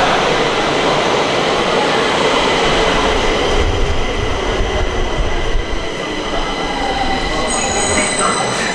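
Stockholm metro train running along the track: a steady rumble with several steady high whining tones over it. The rumble swells about three to six seconds in, and a higher whine joins near the end.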